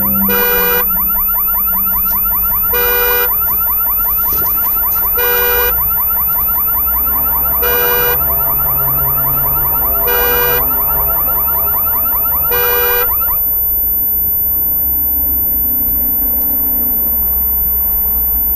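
Electronic alarm siren: a rapid repeating chirp overlaid with a loud blaring tone about every two and a half seconds, stopping abruptly about two-thirds of the way through. A low steady hum remains.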